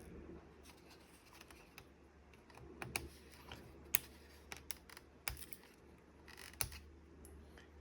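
Faint, scattered small clicks and taps of plastic laptop parts being handled and worked at during disassembly, a few sharper clicks standing out.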